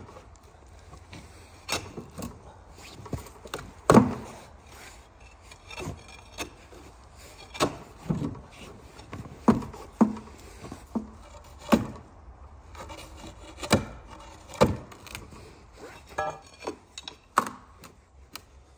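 A wooden 2x4 and a steel pipe prying under a snowmobile track frozen into a dirt floor: irregular knocks and scraping of wood and metal as the track is levered loose, the loudest knock about four seconds in.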